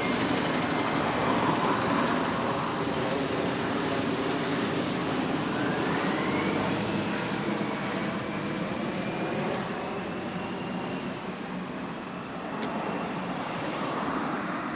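Bus engine running as the bus moves in road traffic, with a high whine that rises and then falls about halfway through.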